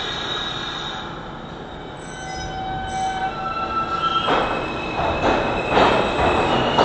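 R160 subway train pulling out of the station: steady whining tones from the train in the first few seconds, then wheel-on-rail noise with regular clacks growing louder from about four seconds in as it picks up speed.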